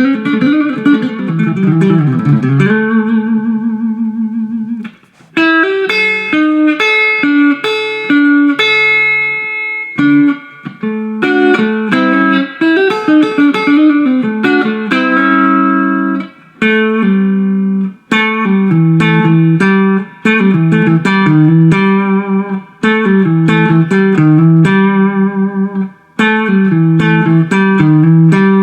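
Electric guitar playing a country chicken-pickin' lick: quick runs of plucked notes with chromatic passing tones and slides. It comes in several phrases separated by brief pauses.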